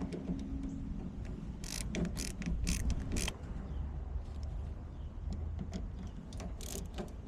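Rapid metallic clicking in two bursts, about two seconds in and again near the end, over a steady low rumble.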